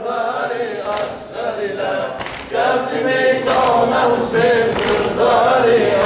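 A group of men chanting a Shia mourning elegy (mersiyye) for Imam Husayn together, in sung phrases that rise and fall.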